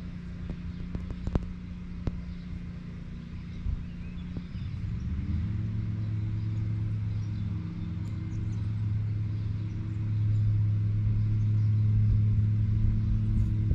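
Distant lawn mower engine running steadily, then growing louder and deeper about four and a half seconds in as the mower's blades start.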